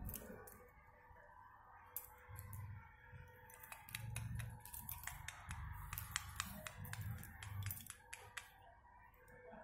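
Faint scattered sharp clicks and ticks, coming thick and fast in the second half, over a low intermittent rumble and a faint steady hum.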